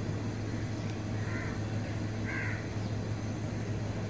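Steady low hum under faint background noise, with two brief faint higher sounds about a second and two and a half seconds in.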